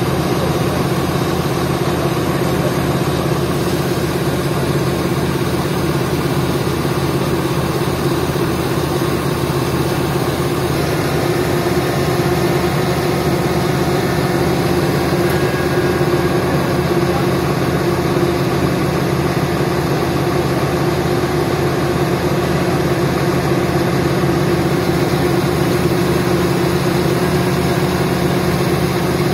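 Diesel engine of an XCMG 50-ton mobile crane running steadily at low speed, a close, even engine drone with a fast regular pulse and no change in speed.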